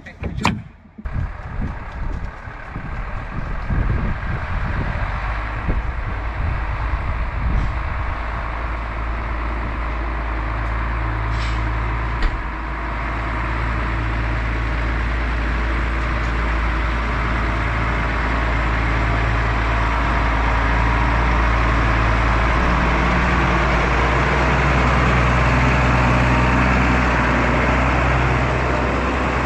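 A vehicle engine running steadily, getting slowly louder, after a few seconds of knocks and clatter at the start.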